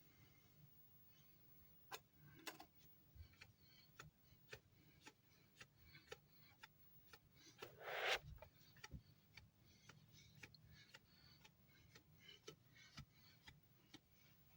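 Faint, even ticking about twice a second over a low steady hum, with one brief louder rustle-like noise about eight seconds in.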